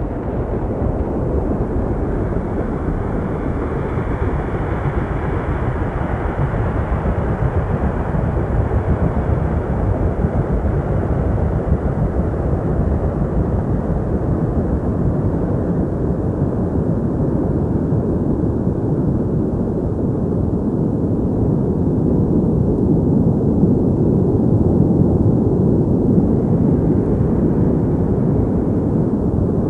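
Deep, steady rumbling roar of a tornado's wind, muffled with little high end, swelling a little in loudness in the last third.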